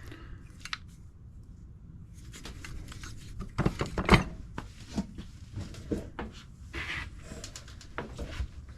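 Hand tools and small metal carburetor parts clicking and knocking as an Edelbrock 1406 carburetor is taken apart, with scattered light clicks and a few sharper knocks about three and a half to four seconds in.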